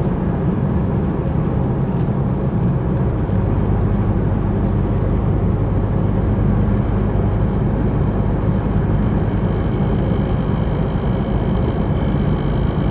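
Chevrolet S10 pickup driving at steady road speed: engine and drivetrain drone low and even under tyre noise, with a faint high whine coming in near the end. The driver suspects the drone comes from worn gears in the differential.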